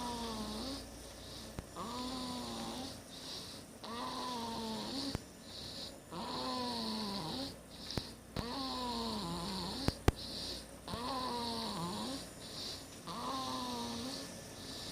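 A six-week-old snoring aggressively. Each pitched snore lasts about a second and comes roughly every two seconds, with a hissing breath between snores. A few small sharp clicks sound, the loudest about ten seconds in.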